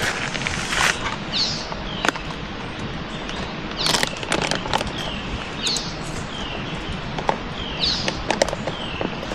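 A songbird calling the same short phrase over and over, about once every second or two, over a steady hiss. Scattered sharp clicks and crinkles come through, a cluster of them about four seconds in.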